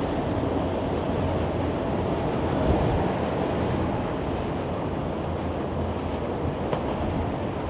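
Freight train rolling over a rail bridge on the CP corridor: a steady low rumble, mixed with gusty wind on the microphone.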